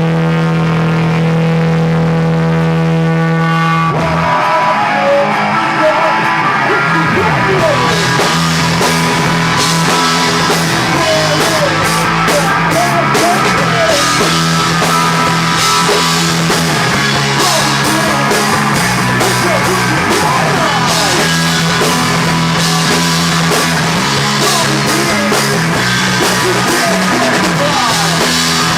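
A rock band playing live, loud: guitar and drum kit. A held guitar chord rings for about the first four seconds, then the music changes, and drums and cymbals come in strongly about eight seconds in.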